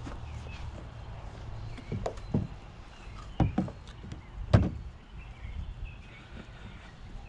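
A few dull knocks and thumps, the loudest about four and a half seconds in, with birds chirping faintly.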